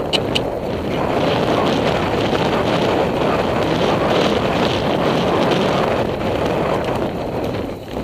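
Wind rushing and buffeting over a helmet-mounted camera's microphone as the horse travels at speed across country, a steady dense rumble that eases near the end. Two sharp clicks sound right at the start.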